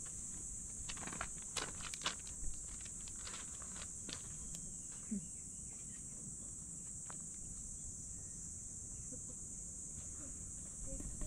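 A steady, high-pitched insect chorus, with light crunching and clicking of loose pebbles underfoot during the first few seconds.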